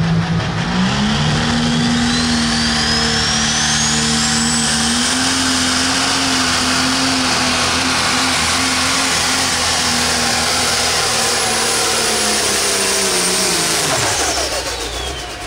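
Pro stock pulling tractor's turbocharged diesel engine at full throttle down the track. It revs up about a second in and holds a steady high pitch, with a high whistle climbing over the first few seconds. Near the end it drops off as the throttle comes back.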